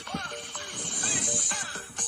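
Electronic music with a simple stepping melody and swooping, sliding-pitch sounds; a bright hiss swells about a second in.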